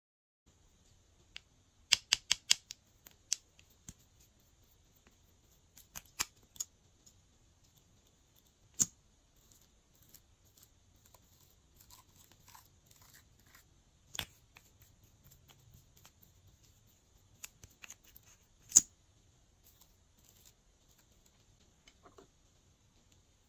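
Sharp plastic clicks and taps from small plastic makeup containers and their caps being handled over a glass bowl of slime: a quick run of four clicks about two seconds in, then single clicks every few seconds, the loudest one near the end.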